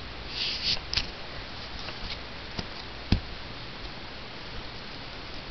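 Bedding rustling and a few soft clicks as a dog shifts about on a bed under a person's hand, with one dull thump about three seconds in.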